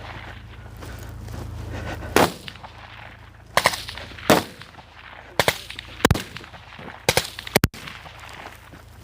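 Kalashnikov-type automatic rifle fired in single shots: about nine sharp reports at uneven intervals, beginning about two seconds in, each with a short echo.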